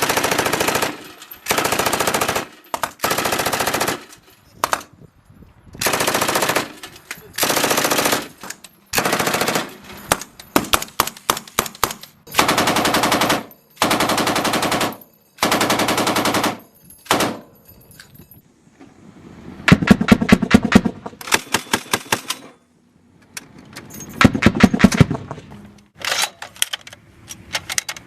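A sequence of gunfire sound effects: repeated bursts of automatic fire, each about a second long with short pauses between, interspersed with runs of rapid separate shots.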